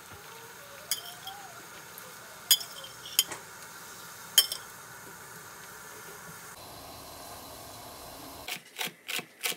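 Water boiling in a saucepan with gnocchi in it, a steady hiss, while a metal spoon clinks sharply against the pot four times in the first half. A quick run of knocks and clinks follows near the end.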